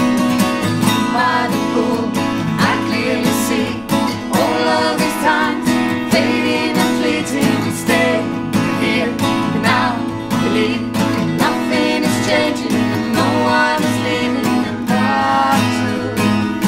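Acoustic guitars playing an instrumental passage, a run of quick plucked melody notes over steady chords.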